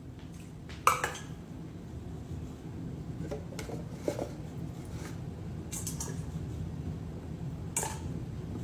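Containers and dishware being handled and set down: a few scattered clinks and knocks, the loudest about a second in, over a steady low hum.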